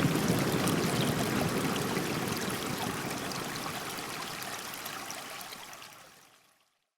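A Google Pixel (2016) built-in alarm or ringtone made of a running-water sound, a steady stream that fades out gradually to nothing near the end.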